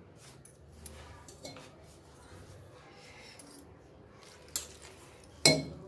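Hands rubbing and mixing flour in a steel plate, a soft rustling with small clicks, then a steel tumbler clinks against the plate twice near the end, the second clink sharp, loud and ringing.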